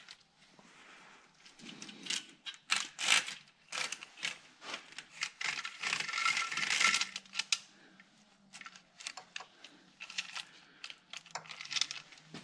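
Metal hand tools and engine parts clinking and tapping against each other as they are handled, with a few seconds of rustling about halfway through.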